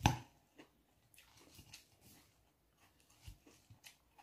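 Close-up eating sounds of a leafy salad eaten with a fork from a bowl: a sharp knock at the start, then soft crunching and mouth sounds, and a few light clicks later on.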